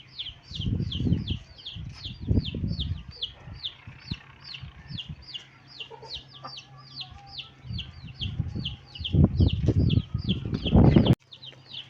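Chicks peeping steadily, a train of short, high, falling chirps at about four a second. Louder bursts of low, muffled rumble come and go, heaviest from about eight to eleven seconds in, then the sound drops off abruptly.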